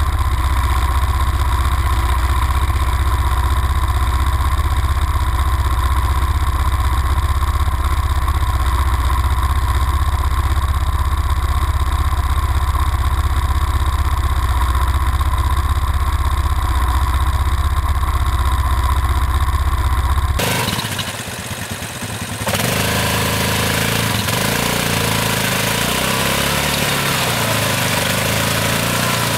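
ATV engines running steadily, with a heavy low rumble. After a cut about 20 seconds in, a Yamaha Grizzly 660's single-cylinder engine runs unevenly as the quad churns through deep mud, its wheels spinning.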